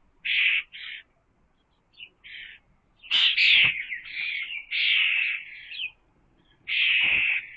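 Birds calling with harsh, rasping chirps in short bursts, several in quick succession, loudest about three seconds in and again near the end.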